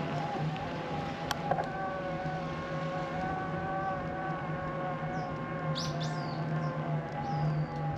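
Steady mechanical hum holding several tones at once. There is a single click just over a second in, and a few short bird chirps around six seconds in and again near the end.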